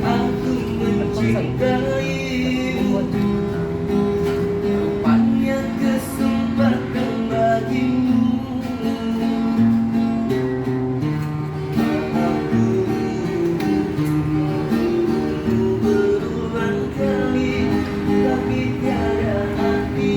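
A busker's acoustic guitar strummed in chords, accompanying a man singing.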